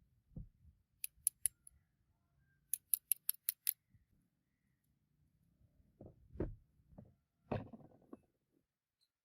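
Two quick runs of sharp, crisp clicks, four and then six, like small metal blades snapping shut. Near the end come a few dull knocks and a short scrape as something is handled.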